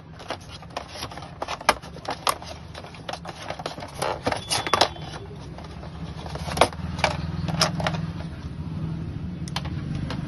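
Clicks, taps and light rattles of a Bluetooth neckband earphone and its plastic box tray being handled as the neckband is lifted out, over a steady low hum that grows a little louder about two thirds of the way in.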